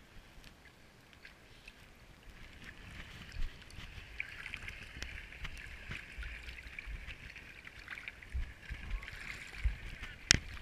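Water lapping and gurgling against a waterproof action camera at the surface of the water, with a sharp knock near the end.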